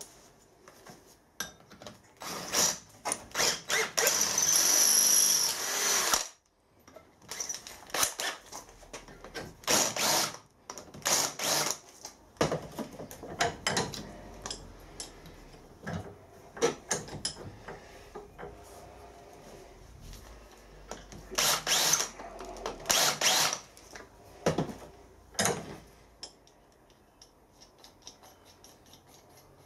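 Bench metalwork on a small plasma-cut steel plate: a power drill runs with a high whine for about two seconds, about four seconds in. Short scrapes and clinks of metal tools and parts at a vise are heard throughout.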